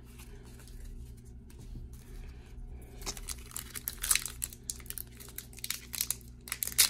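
Foil wrapper of a 2021 Topps Opening Day baseball card pack crinkling and tearing as fingers pick at and pull open its sealed top. It is faint at first, then comes as a run of crackles from about three seconds in, loudest near the end.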